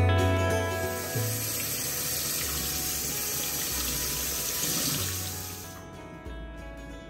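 Kitchen tap running, water splashing over vegetables in a plastic colander in the sink. It starts about a second in and stops about a second before the end, over background music.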